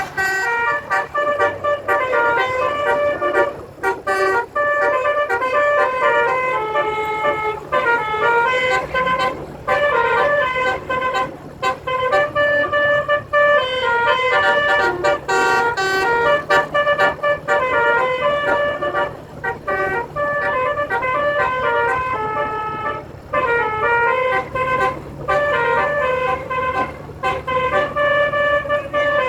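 Basuri multi-tone telolet horn playing a melody: several horn notes sound together and step up and down in pitch in short phrases, broken by brief pauses. A low steady hum sits underneath from about six seconds in.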